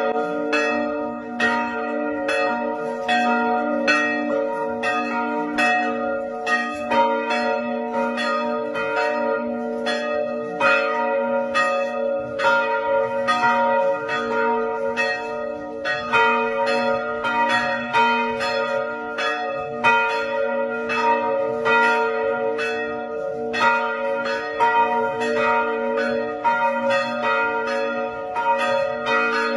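Several church bells ringing together in a continuous peal, strikes coming a few a second and overlapping over their long humming tones.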